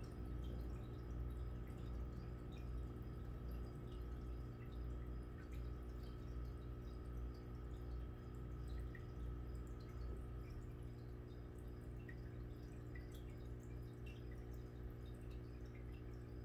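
Aquarium air bubbler: a rising stream of air bubbles breaking at the water surface in small, irregular pops and drips, over a steady low hum from the tank's equipment.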